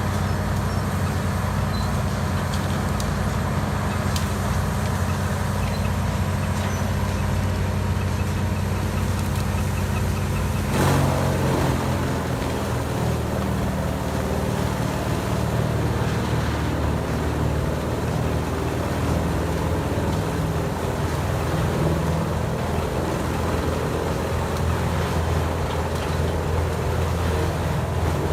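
Heavy diesel engine of a large wood grinder running steadily. About eleven seconds in there is a sharp knock, after which the engine note shifts.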